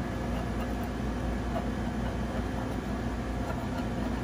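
Steady, low droning of running machinery, even in level throughout.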